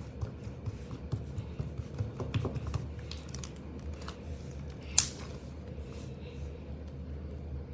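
Slime being handled and pressed, giving small irregular clicks and crackles, with one sharper pop about five seconds in.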